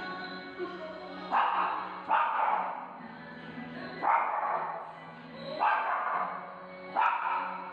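Small dog barking five times, a second or so apart, over background music.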